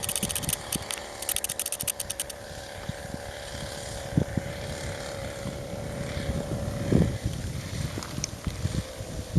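A two-stroke chainsaw engine on a homemade moped, running at a steady pitch with a high drone. Rapid fine clicking sounds for the first two seconds or so. Irregular low rumbles and thumps run throughout, the strongest about seven seconds in.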